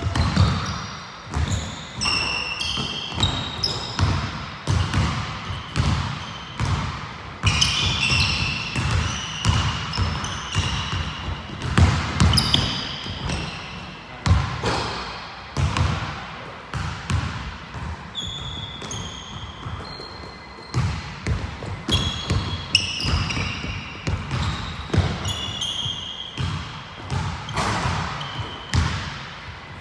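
A basketball bouncing again and again on a hardwood gym floor as it is dribbled, with short high squeaks of sneakers on the court between the bounces.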